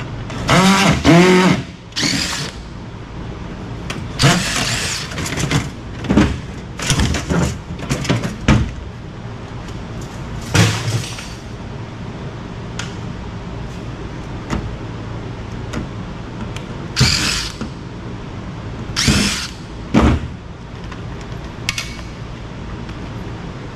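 A cordless drill whirs briefly about a second in, backing out screws to free a microwave oven's cooling fan. Clanks, rattles and knocks follow at intervals as sheet-metal and plastic parts are pulled off and dropped.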